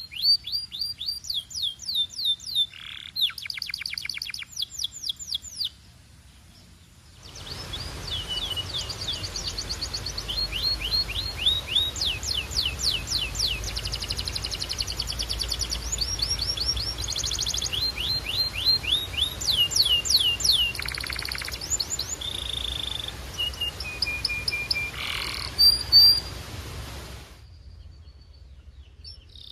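A canary singing fast trills of rapidly repeated, falling whistled notes, switching between phrases. The song breaks off briefly about six seconds in, resumes over a steady hiss, and stops near the end.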